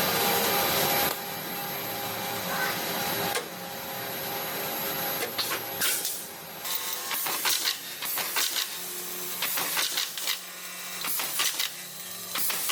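Sheet-metal coil line machinery running: a steady mechanical hiss and hum, then a busy run of sharp metallic clicks and knocks over a low steady hum. The sound changes abruptly about a second in and again about three and a half seconds in.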